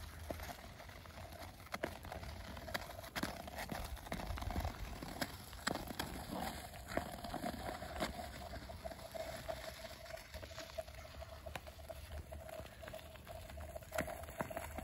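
Ice skate blades scraping and gliding on thin lake ice, with many sharp irregular ticks and cracks from the blades and the ice, over a faint steady hum.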